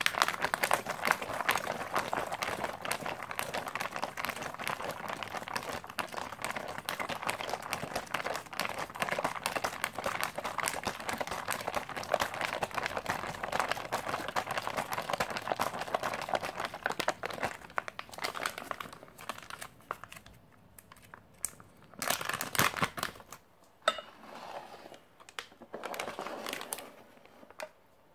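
Foil ration packaging crinkling as it is handled in the hands: dense, continuous crackling for about the first eighteen seconds, then scattered short bursts with quiet gaps between.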